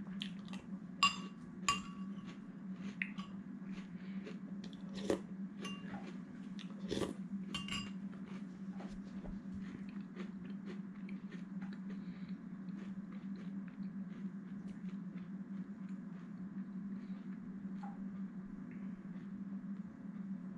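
Metal spoon clinking against a cereal bowl, twice sharply with a short ring about a second in and a few more knocks a few seconds later, among quiet chewing and crunching of cereal. A steady low hum runs underneath.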